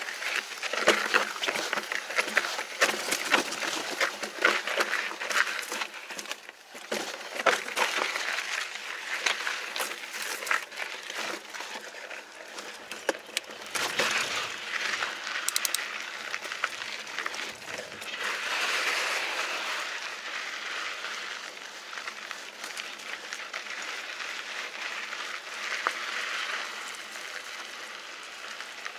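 Mountain bike riding over chunky granite rock: tyres crunch over rock and grit while the bike rattles with many sharp clicks and knocks. About halfway through this eases into a smoother rolling hiss with fewer knocks.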